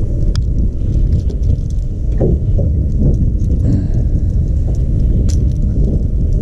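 Wind buffeting the camera microphone in a steady low rumble, with a few light clicks as a jerkbait's treble hooks are worked free from a bass's mouth.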